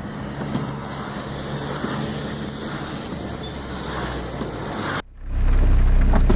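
Storm wind rushing over the microphone with a faint steady low hum underneath. About five seconds in it cuts off abruptly and gives way to a much louder, steady low rumble of wind buffeting the microphone.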